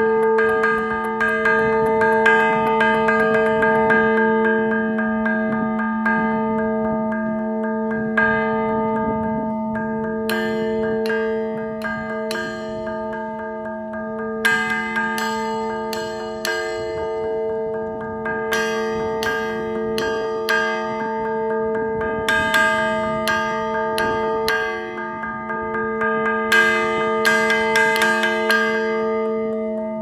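Large bronze Time and Tide Bell struck by hand with two hammers in quick clusters of strokes. Its low hum and many overtones ring on without break between the strikes.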